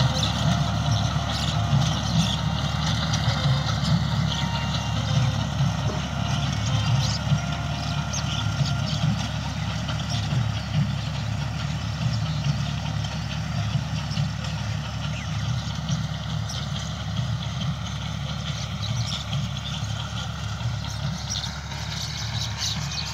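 Massey Ferguson 240 tractor's three-cylinder diesel engine running steadily as it pulls a tillage implement through the soil, with scattered bird calls over it.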